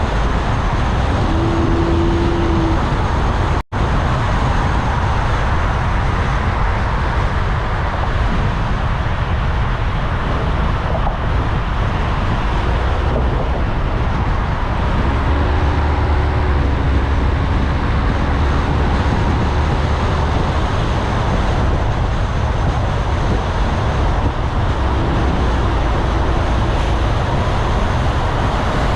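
Steady road and traffic noise from a car driving through city streets. The sound cuts out for an instant just before four seconds in, and a deeper engine rumble swells for a few seconds past the middle.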